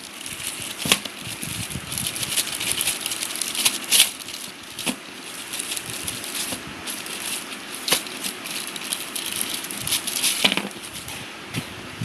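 Crinkling plastic packaging and rattling as speaker accessories are unpacked by hand, with several sharp clicks and knocks through it.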